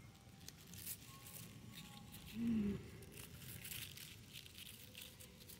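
Fresh basil stems being picked by hand: faint crackling snaps and leaf rustles. A brief hummed voice sound, the loudest thing, comes about halfway through.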